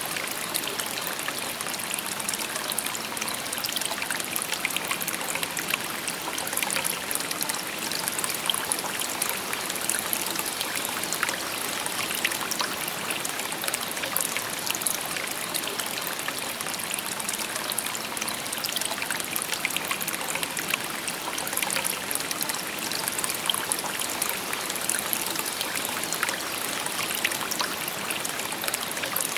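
Shallow stream babbling steadily over stones, with many small splashes and trickles.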